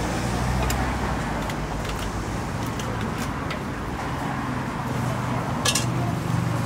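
Street ambience of motor traffic running steadily, with a low engine hum, and a few light clicks or clinks, the clearest about six seconds in.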